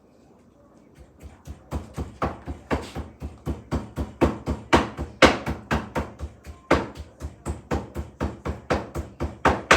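Kitchen chopping: a blade striking a cutting board in a steady, rapid rhythm of about three strokes a second, starting about a second in.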